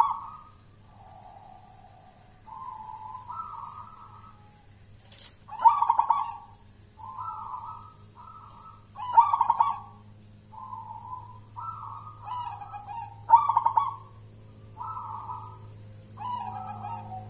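Local-strain zebra dove (perkutut) cooing in a thick voice: repeated phrases of short, mellow notes, with a louder, sharper note about every three and a half to four seconds.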